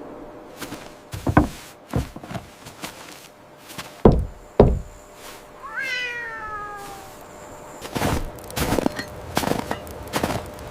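A cat meowing once, a falling call about six seconds in, among several dull thumps and a run of quick knocks near the end.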